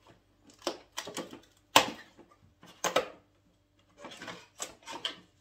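Cardboard packaging of a Pringles advent calendar being handled, likely while door 19 is opened and its small Pringles can taken out: a string of irregular clicks, knocks and rustles, the sharpest a little under two seconds in and a cluster near the end.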